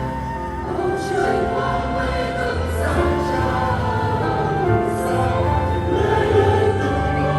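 Choral music: a choir singing sustained chords over a low bass line.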